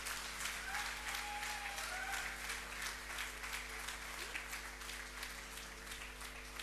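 Audience applauding, thinning out and dying down near the end.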